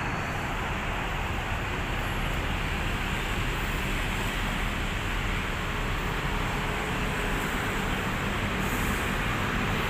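Steady road traffic noise, a continuous wash of car engines and tyres, with a faint steady hum joining about six seconds in.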